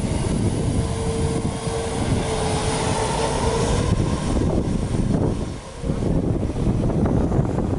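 Boeing 737's twin jet engines at high thrust, heard from behind the airliner as it starts its takeoff roll: a heavy, steady rumble of jet blast with a whine rising in pitch a second or two in. The rush dips briefly near the end.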